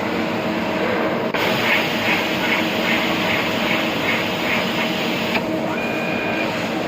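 CNC machine running with a steady mechanical hum. About a second in, a hissing layer with regular pulses, roughly two or three a second, joins it and stops suddenly after about four seconds. A short high whistle-like tone follows near the end.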